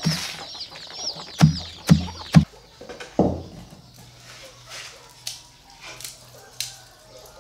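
Chickens calling: a quick run of high, repeated peeps in the first two seconds or so, with several dull thuds, then quieter with scattered clicks.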